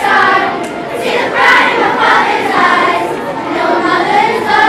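Children's choir of about forty voices singing a cappella, with no backing track. Near the end a held note begins.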